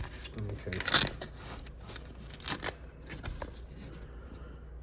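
Handling noise from a hatchet multi-tool: a short rustle about a second in, then a few light clicks and taps as its parts are moved.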